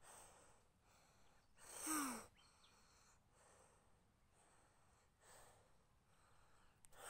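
Near silence, broken by one short voiced sigh from a young girl about two seconds in, falling in pitch, and a fainter breath a few seconds later.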